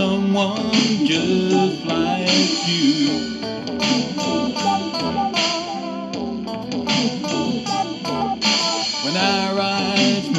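Band music with an electric guitar played over bass guitar and a steady drum beat.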